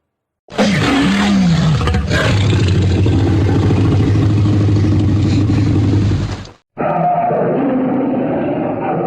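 Dinosaur roar sound effects, one after another. The first is a long roar of about six seconds that opens with a bending, falling cry and settles into a steady low growl. After a brief gap, a second, more muffled roar starts near the end.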